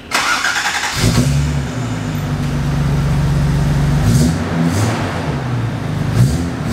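1982 Toyota Celica Supra's 5M-GE inline-six running through a Greddy header and 3-inch exhaust, a deep, bassy note. A rushing noise fills the first second, then the engine note comes in strongly and holds, dipping and swelling slightly as the car begins to roll forward.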